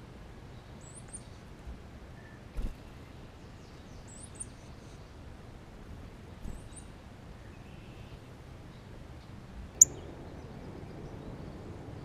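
High, thin songbird chirps, a quick pair of notes every two to three seconds, over a steady hiss. A soft thump comes about two and a half seconds in, and a single sharp click near the end is the loudest sound.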